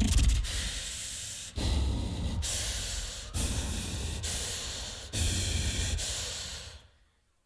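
Beatboxer making hissing, breathy noise sounds into a microphone: several sustained blasts that switch abruptly from one to the next, some with a deep bass under them, then cutting to silence shortly before the end.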